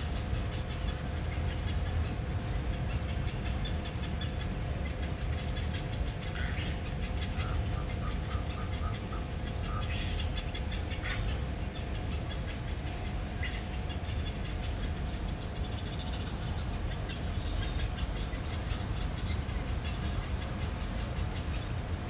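Steady low outdoor rumble with a faint steady hum, over which birds give a few short calls, including a quick run of about five even notes around a third of the way through.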